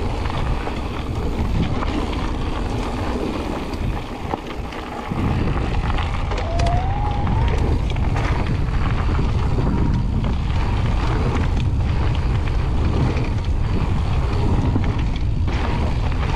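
Wind buffeting the microphone over the crunch and rattle of a mountain bike's tyres rolling fast down a gravel trail, easing briefly around four seconds in. A faint short rising whine comes partway through.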